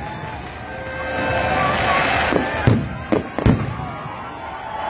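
Aerial fireworks bursting: a dense crackling builds, then four sharp bangs follow one another in just over a second, about halfway through.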